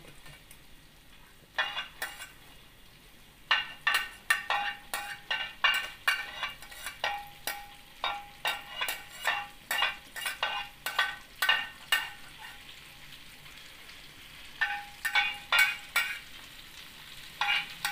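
A metal spatula clinking repeatedly, about two strikes a second, each with a short metallic ring, as chopped chilli and garlic are scraped from a cutting board into a wok of melted butter. The butter sizzles faintly underneath.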